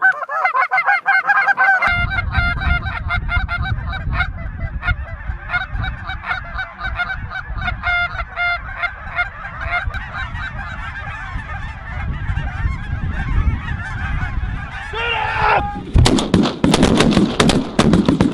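A huge flock of snow geese honking and calling continuously, over a steady low rumble. About 16 seconds in, a rapid volley of shotgun blasts from several hunters breaks out under the calling.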